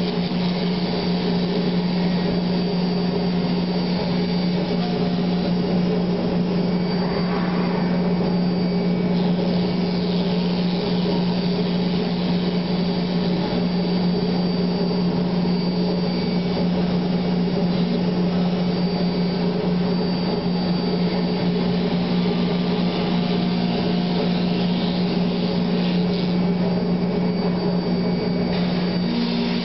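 C.R. Onsrud Panel Pro CNC router running: a steady machine hum with a faint higher whine that rises and falls now and then.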